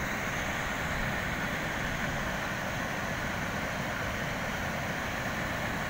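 Water rushing steadily over a low concrete river weir and churning into white water below it.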